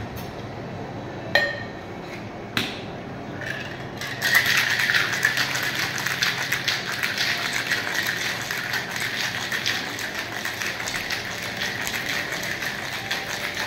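A few separate clinks of ice and glass, then about four seconds in a Boston shaker of tin and mixing glass packed with ice is shaken hard: a fast, steady rattle of ice against the tin that lasts about nine seconds and stops just before the end.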